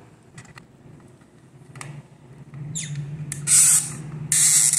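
Handling noise while a jumper wire is fitted to a timer: a few faint clicks, then two loud scratchy rustles near the end, a hand brushing close to the microphone.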